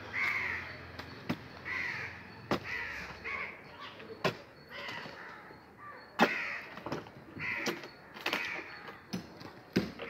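Crows cawing over and over, mixed with several sharp knocks from the plinth beam's formwork shuttering being struck loose, the loudest about six seconds in.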